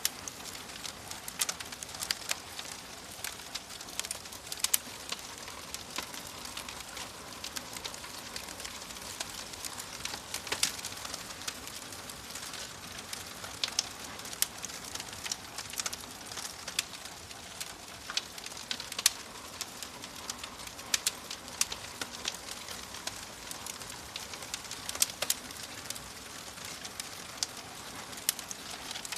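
Wood fire crackling: a steady hiss with frequent sharp pops and snaps at irregular intervals.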